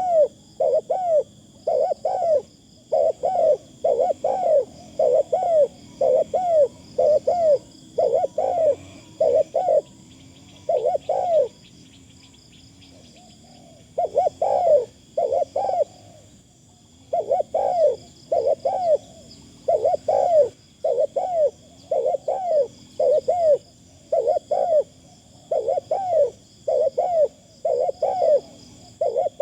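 Spotted dove cooing over and over in quick runs of arching notes, about two a second, with a break of a couple of seconds partway through. A steady high insect buzz runs underneath.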